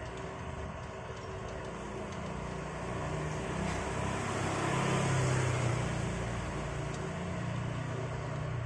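XTitan cordless impact wrench running as it drives a 21 mm nut back on. It is a steady mechanical sound that swells louder in the middle.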